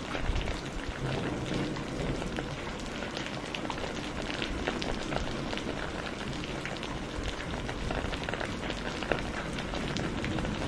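Steady rain falling on hard surfaces, many separate drops ticking and splashing over a constant hiss, with a low rumble underneath.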